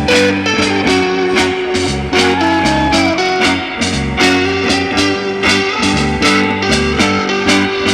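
Guitar-led surf rock music: electric guitar over bass and drums with a steady beat, the guitar bending a note about two seconds in.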